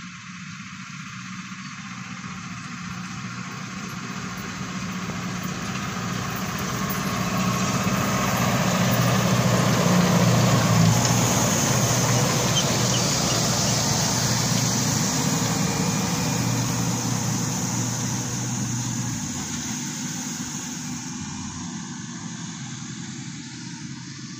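Valtra N 154 tractor's diesel engine running under steady load while pulling an Amazone ADP seed drill combination, with the noise of the rotary harrow and packer roller working the soil. It grows louder as it approaches, is loudest about ten seconds in as it passes close, then fades as it moves away.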